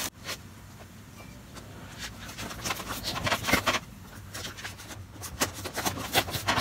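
Scissors cutting through the packing tape along a cardboard box's seam: an irregular run of short scraping snips that starts about two seconds in.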